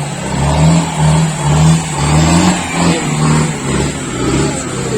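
Off-road 4×4 jeep engine revving in repeated surges, about two a second, the pitch rising and falling with each blip of the throttle and settling near the end.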